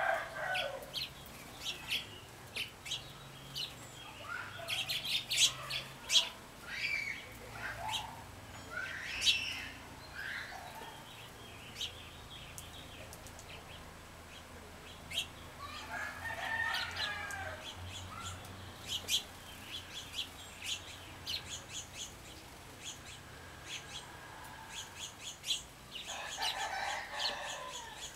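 Small songbirds chirping and calling with many short, quick notes, while a rooster crows three times: right at the start, about halfway through and again near the end.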